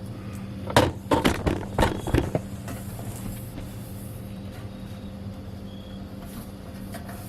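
A quick run of about six knocks and clatters from grill parts being handled during assembly, over a steady low hum.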